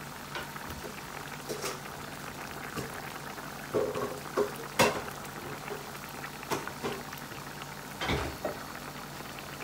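Chicken curry boiling in a steel pan, its thick sauce bubbling with irregular pops, the sharpest about five seconds in.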